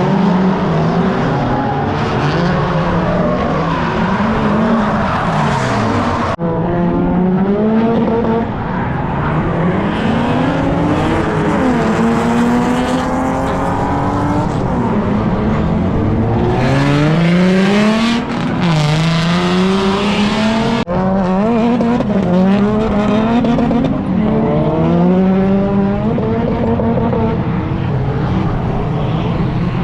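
Car engine revving hard, its pitch climbing and dropping again and again as in drifting, with tyre noise in places. The sound changes abruptly twice, about six and twenty-one seconds in.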